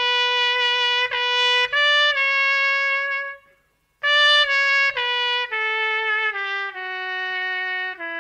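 A solo brass instrument playing slow, held notes in two phrases with a short break about three and a half seconds in; the second phrase steps downward in pitch.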